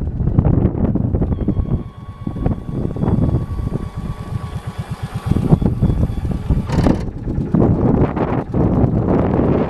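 John Deere Gator 4x2 utility vehicle running, heavily buffeted by wind on the microphone; a short sharp noise comes about seven seconds in.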